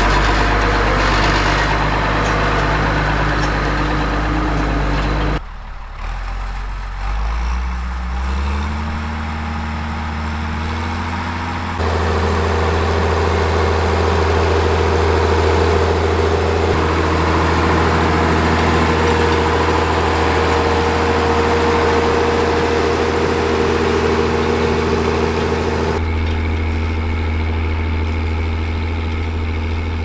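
Fiatagri 160-90 DT tractor's six-cylinder turbocharged 8.1-litre Fiat diesel engine. It runs steadily at first, then revs up with a rising pitch about six seconds in. From about twelve seconds it pulls steadily under load, working a four-furrow plough. The sound changes abruptly at a few points.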